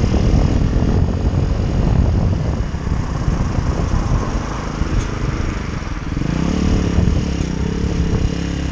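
Pit bike engine running while the bike is ridden, its pitch swinging up and down with the throttle, with a clear rise and fall near the end. A steady rush of wind and road noise runs underneath.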